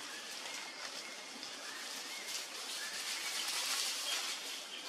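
Outdoor forest ambience: a steady high hiss with faint short chirps and squeaks over it.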